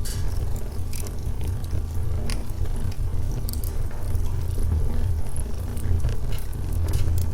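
Logs burning in a fireplace: a steady low rumble of flame with irregular sharp crackles and pops from the wood.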